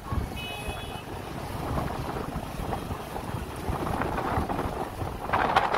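Wind buffeting the microphone over the steady rumble of a moving vehicle's road and engine noise, with a brief high tone about half a second in; the wind noise swells louder near the end.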